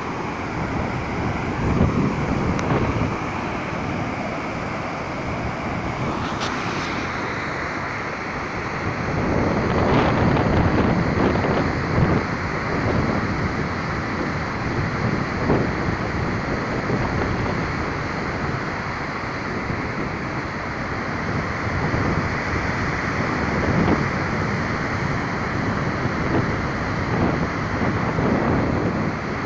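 Steady rush of a waterfall, with wind buffeting the phone's microphone in gusts, strongest about ten to twelve seconds in.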